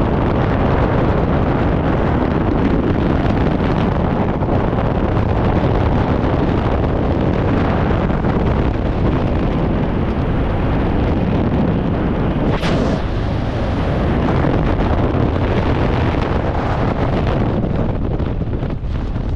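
Loud, continuous rush of freefall wind buffeting a skydiver's helmet-mounted camera microphone, with one brief sharp click about two-thirds of the way through. The rush thins out a little near the end.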